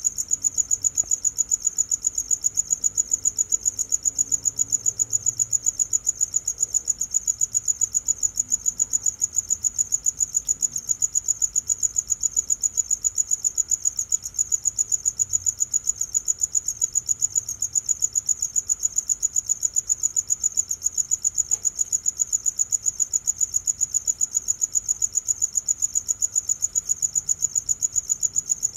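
A cricket chirping: a high, steady chirp repeated in quick, even pulses, several a second, without a break.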